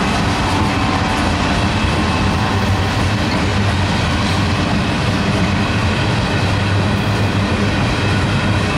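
Freight train's gondola cars rolling past close by: a loud, steady noise of steel wheels running on the rails.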